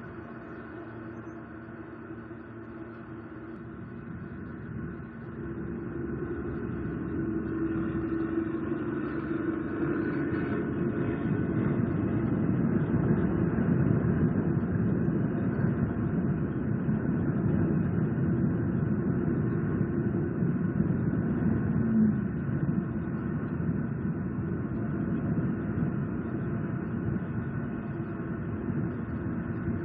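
Steady low rumbling noise that grows louder from about six seconds in and then holds.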